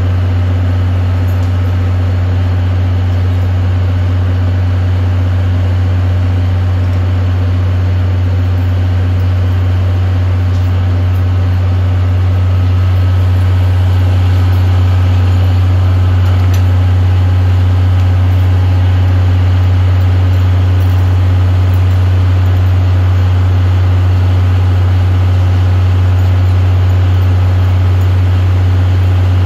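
DE10 diesel-hydraulic locomotive idling: a steady low engine drone that grows a little louder about twelve seconds in.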